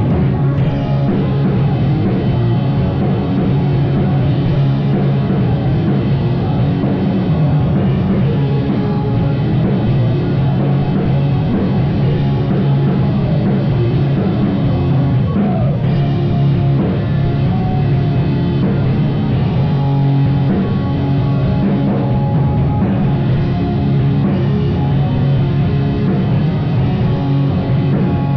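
Live rock band playing loudly: drum kit and amplified guitars, steady and unbroken throughout.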